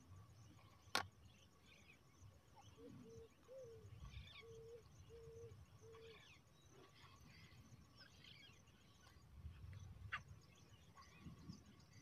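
Faint bird calls: a run of about six short, low hooting notes between about three and six seconds in, with scattered thin high chirps. A sharp click comes about a second in and another near ten seconds, over a low, uneven rumble.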